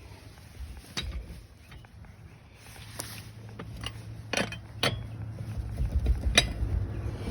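Metal clinks and knocks of a lug wrench and socket on a car wheel's lug nuts, five or so sharp strikes spaced a second or more apart, over a low steady hum that sets in a few seconds in.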